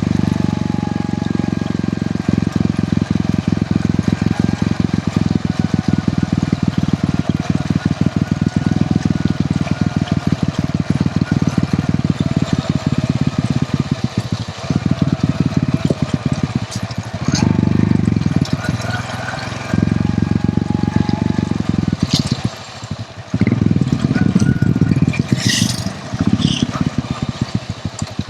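Hero Honda CD100's single-cylinder engine running while the motorcycle is ridden, with a steady rapid firing beat that drops away briefly near the end.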